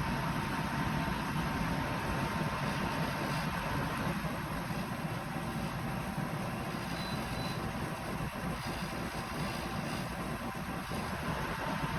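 AirOrig portable air conditioner running: a steady whooshing noise with a low hum and a faint, thin whine.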